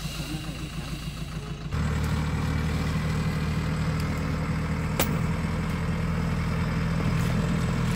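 Light cargo truck's engine running steadily as it pulls up a steep muddy track, with a low even drone that becomes suddenly louder about two seconds in. A single sharp click comes about halfway through.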